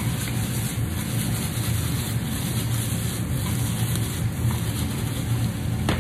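Pasta in sauce frying in a stainless steel pan on an induction hob: a steady sizzling hiss over a low, even hum.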